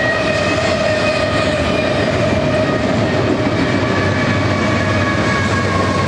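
Double-stack container cars of a freight train rolling past at speed: a loud, steady rumble of wheels on rail with a sustained high ringing tone over it.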